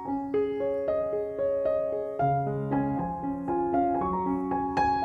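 Background piano music: a melody of evenly paced single notes, with lower accompanying notes joining about two seconds in.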